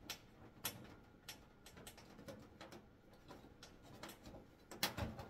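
Scattered small clicks and taps of fingers working a plastic lamp-holder fixture loose from a tanning bed's metal panel, with a louder knock about five seconds in.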